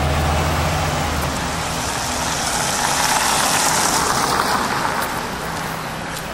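Street traffic noise. A large vehicle's low engine hum fades out in the first second or so, then a broad hiss of passing traffic swells in the middle and eases off.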